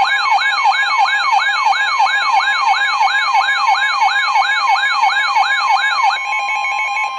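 Emergency Alert System alarm: an electronic siren of quick repeating falling sweeps, about three a second, over a steady two-tone attention signal. The sweeps stop about six seconds in, leaving the steady tone alone.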